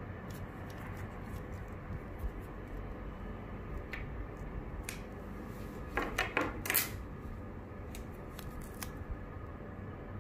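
Light clicks and rattles of a wire harness with spade connectors and a small metal push button being handled, with a brief cluster of louder clacks about six seconds in as they are set down on a wooden table.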